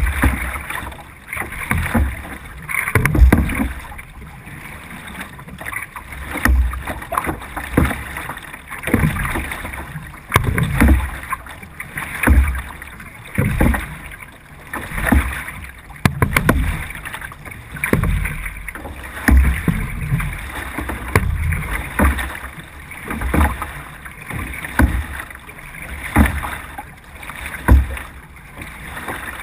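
C1 sprint canoe paddled at race pace: each paddle stroke brings a surge of splashing water, about one every one and a half to two seconds.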